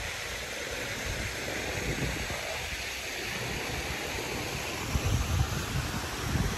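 Steady hiss of fountain jets splashing into a pond, with wind rumbling on the microphone in gusts that grow stronger about five seconds in.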